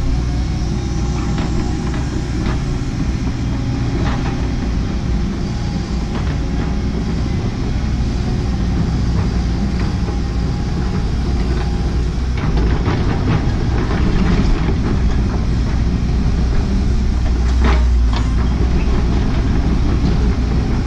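Cat 314E excavator's diesel engine running steadily under work, with scattered clanks and knocks of the machine working, the sharpest one near the end.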